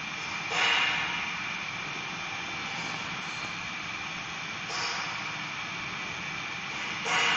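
Steady mechanical whir with a constant high whine, swelling louder briefly a few times.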